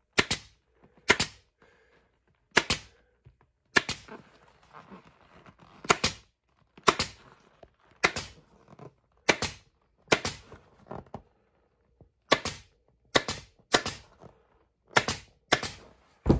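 Pneumatic upholstery staple gun firing staples through vinyl and foam into an ATV seat's plastic frame: about fifteen sharp shots, roughly a second apart and sometimes in quick pairs, with faint vinyl rustling between them.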